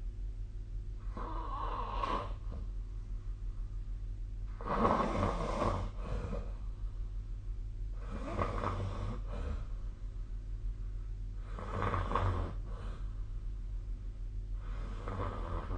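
A sleeping person snoring: five snores at an even pace, about one every three and a half seconds, with the second the loudest. A low steady hum lies underneath.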